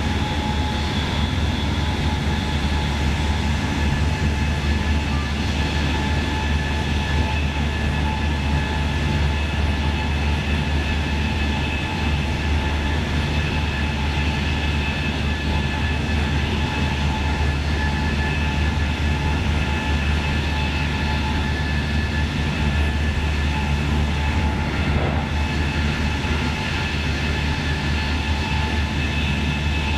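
Steady rolling noise of a double-deck regional train at high speed, heard from inside the coach. The low rumble of wheels on rail runs unbroken, with a few steady whining tones above it.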